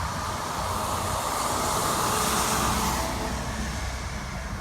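Road and traffic noise of a car being driven: a steady hiss that swells for a couple of seconds near the middle and then eases off.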